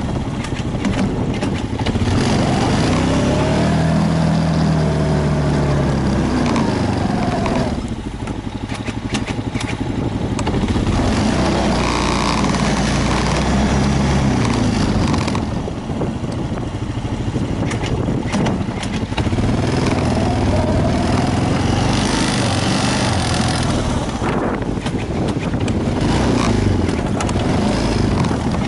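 An engine running steadily, its pitch rising and falling several times as it speeds up and slows down.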